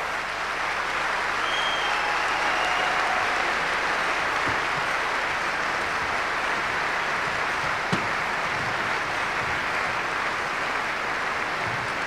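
Audience applauding steadily.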